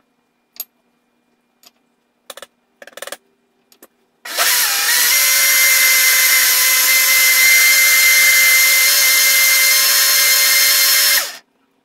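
A 350-watt personal blender runs for about seven seconds, blending a liquid blueberry smoothie. The motor starts with a short rising whine, then holds a loud, steady high whine before it cuts off. Before it starts there are a few light knocks and clicks.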